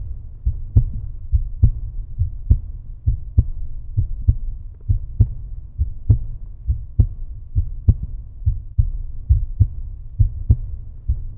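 Deep, heavy thuds repeating evenly a little faster than once a second, at about heartbeat pace, over a steady low rumble.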